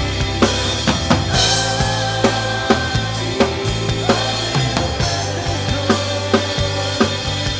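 Live drum kit playing a steady groove with a full worship band, kick and snare landing about twice a second over sustained bass and keyboard notes. Crash cymbals ring out about a second and a half in and again about five seconds in.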